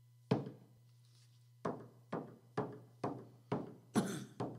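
Frame hand drum struck with a wooden beater: one strike, a pause, then a steady beat of about two strikes a second, the beat that opens a traditional Western Abenaki greeting song.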